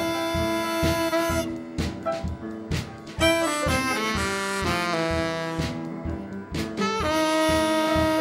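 Live blues band playing: a saxophone holding long notes over upright piano and a drum kit keeping a steady beat.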